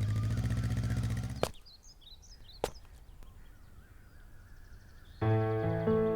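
Motorcycle engine running, cutting off sharply about a second and a half in; then a quiet stretch with faint bird chirps, and background music begins near the end.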